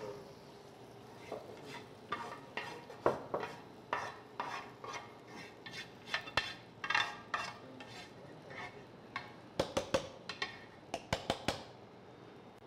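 Kitchen tongs and a spatula scraping chicken in thick curry sauce out of a pan into a nonstick pot: irregular scrapes and soft clinks, with a quick run of sharp taps about ten seconds in.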